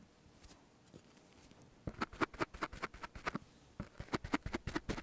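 A damp pad dabbed against the microphone: a run of quick, soft taps and clicks right at the mic, starting about two seconds in, with a short break just before the four-second mark.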